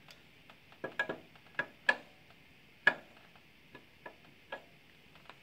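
A hammer tapping a new alternator's mounting lug into its engine bracket on a 2000 Toyota Camry 2.2, seating the oiled mating surfaces. The taps come as about a dozen light, irregular knocks, the loudest about three seconds in.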